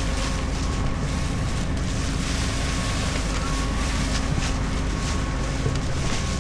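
Diesel engine of farm machinery running at a steady speed, a low rumble with a steady whine over it and some wind noise on the microphone.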